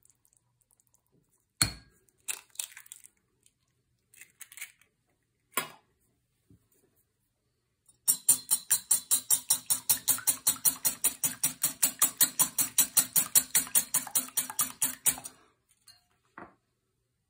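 Wire whisk beating an egg in a ceramic plate: a fast, even run of clinking strokes, about six a second, lasting about seven seconds, after a few scattered knocks.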